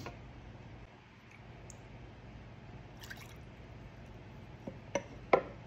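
Beet kvass dripping through a plastic funnel into a glass mason jar. A few short, sharp knocks come near the end.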